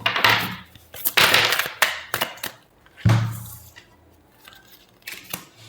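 Tarot cards being handled: rustling, snapping bursts of shuffling in the first two seconds, then a dull thump about three seconds in as a card or the deck is set down.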